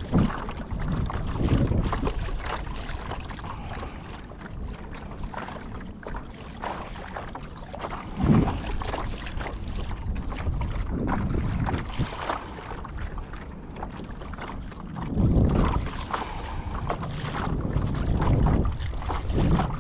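Wind buffeting the microphone in gusts, over water splashing and lapping against the hull of a pedal-driven Hobie Lynx kayak under way.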